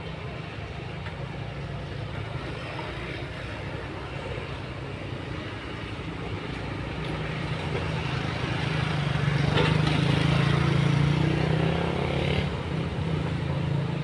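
Heavy diesel engines of an excavator and a crawler bulldozer running steadily under load. The sound grows louder about two-thirds of the way through, with a brief knock at the peak, then eases off.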